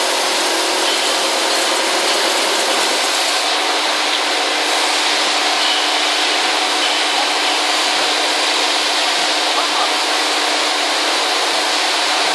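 Large milling machine face-milling a steel plate with its swivel head: a steady machining noise with a constant hum running through it.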